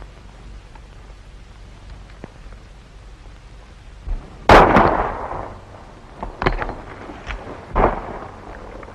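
A single gunshot about four and a half seconds in, with a long echoing tail, followed by a few fainter sharp knocks.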